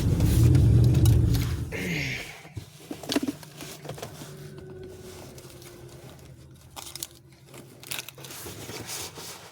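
A car engine running, then switched off about two seconds in, winding down quickly. After that come scattered clicks and rustling from someone handling things inside the parked car's cabin.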